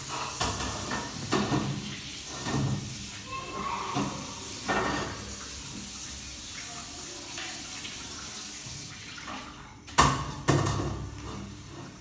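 Kitchen tap running into a sink during dishwashing, with dishes clinking now and then. There is a sharp clatter about ten seconds in, followed by a second knock.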